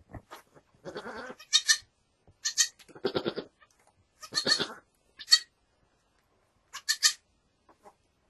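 Doe goat and her newborn kid calling to each other: a run of short bleats about a second apart, most of them high and thin, a couple lower and fuller.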